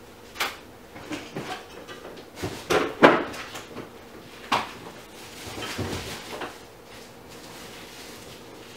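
A series of irregular knocks and bumps, like household doors or cupboards being handled. The loudest comes about three seconds in, and a softer, longer shuffle follows around six seconds.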